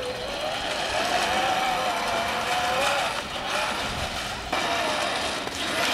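Electric motor and gearbox whine of children's battery-powered ride-on toy vehicles driving, a steady tone that wavers up and down in pitch and drops out briefly twice.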